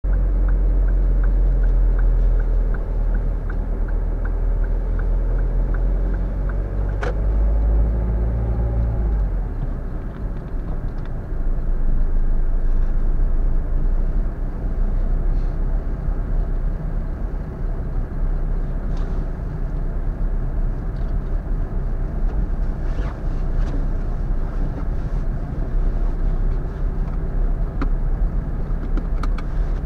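Car engine heard from inside the cabin, first idling with a steady hum and a quick regular ticking of about three ticks a second. After about nine seconds the ticking stops and the car moves off, and the sound becomes engine and tyre noise on a snow-covered street.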